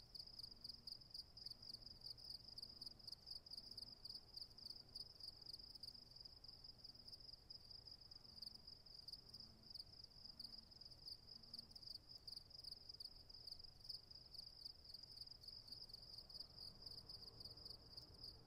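Faint crickets chirping steadily, a high, even, rapidly pulsing trill.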